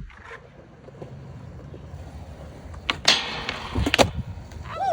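Skateboard wheels rolling on concrete with a low rumble, then a short scrape a little after three seconds in and a sharp clack of the board about four seconds in. A brief vocal exclamation near the end.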